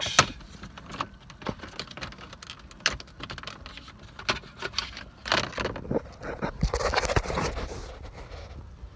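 Plastic trim around a car's gear shifter being pried and handled, with scattered clicks and taps and a stretch of scraping and rustling about five seconds in.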